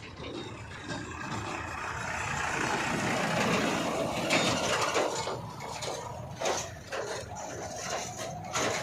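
A heavy machine's diesel engine running. It grows louder for a few seconds, then short knocks and clatters come in over it in the second half.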